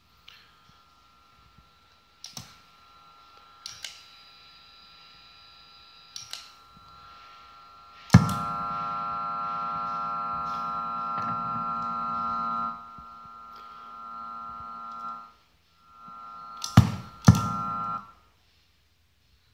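Bass effects pedals' footswitches clicking on and off, with a steady buzzing whine of electrical background noise from the pedals that comes and goes with the switching: faint at first, much louder after a click about eight seconds in, dropping twice, then stopping after two quick clicks near the end. The noise comes from the pedals powered daisy-chained off one port of a Volto supply.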